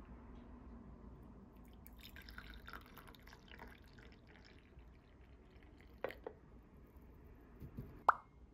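Faint liquid trickling and dripping, then two light clicks and one sharp, ringing clink near the end.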